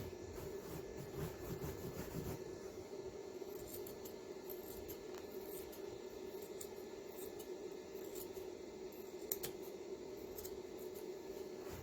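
Small snipping and rubbing sounds of carpet being worked by hand, over a steady low hum, with one sharper click about nine seconds in.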